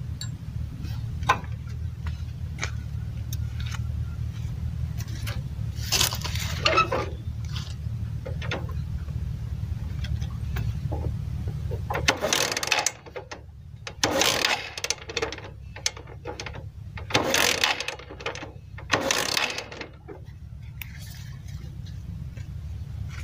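Motorcycle kick-starter worked about five times, each kick a short burst of clattering ratchet and cranking, and the engine never fires: the stator coil's wire to the ignition coil is disconnected, so there is no spark. A steady low rumble stops about halfway through.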